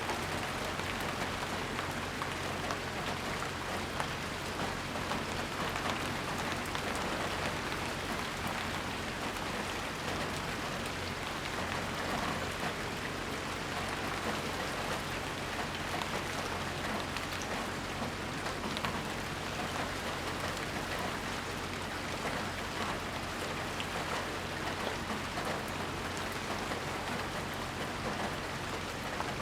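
Steady rain falling and pattering on surfaces, a dense even hiss with many small drop taps, under a faint steady low hum.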